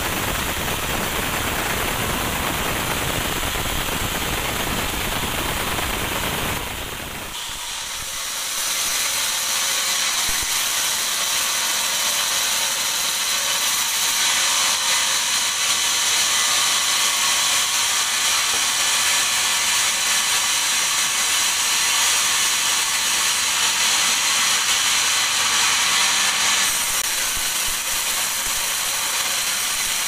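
Sawmill band saw cutting through a teak log: a continuous hissing rush of the blade in the wood. About a quarter of the way in the sound changes abruptly, losing its low rumble and turning to a higher hiss, which is loudest in the middle stretch.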